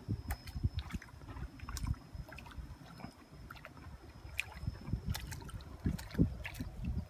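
Hooked tilapia thrashing and splashing at the water's surface as it is hauled in, then dragged up through bankside weeds: irregular splashes, knocks and rustles, the heaviest about five to six seconds in.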